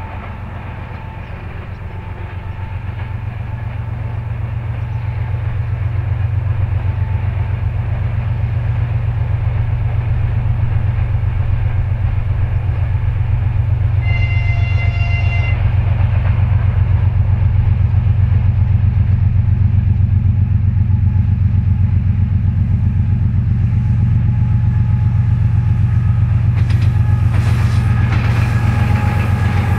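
GE TE33AC diesel locomotive's GEVO12 V12 engine working under load as it hauls a freight train up a grade, its low pulsing drone growing louder as it approaches. A short horn blast about halfway through, and near the end the clatter of wheels over the rails as the locomotive passes close.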